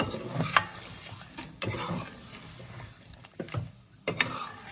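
Spatula scraping and knocking against a metal kadhai as chunks of mutton in thick masala paste are stirred, several uneven strokes, over a low sizzle.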